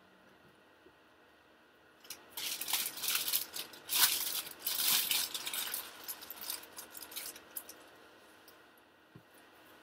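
Plastic packaging crinkling and rustling as it is handled: a dense run of crackles starting about two seconds in and lasting about five seconds.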